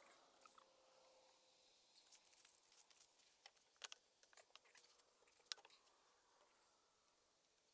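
Near silence, broken by faint scattered clicks and taps of PVC pipe and fittings being handled, the sharpest about four and five and a half seconds in.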